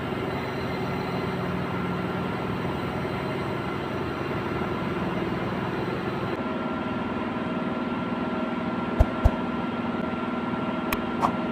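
Steady drone of ship engine-room machinery, with several steady hum tones running through it. A couple of short knocks come about nine seconds in, and a few faint clicks follow near the end.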